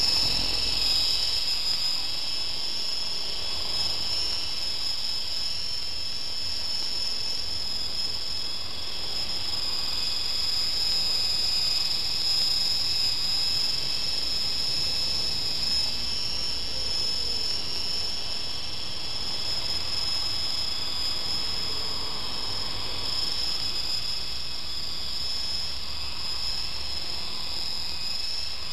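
Micro electric RC helicopter flying, its small motors and rotors giving a steady high-pitched whine that wavers slightly in pitch.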